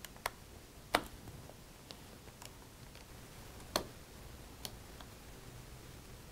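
Light metallic clicks and ticks from a Phillips 00 precision bit driver unscrewing the small screws that hold an original MacBook Air's battery in place. There are about seven scattered clicks, the two loudest about a second in and just past the middle.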